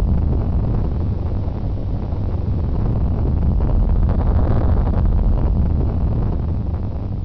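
Earthquake rumble: a continuous deep rumble with a rushing noise above it, easing slightly in loudness.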